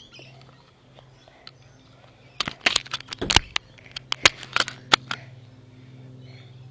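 Handling noise from a camera held in small hands: a quick run of sharp clicks and knocks from fingers fumbling on the camera body beside its microphone, about a dozen over a couple of seconds in the middle, over a faint steady low hum.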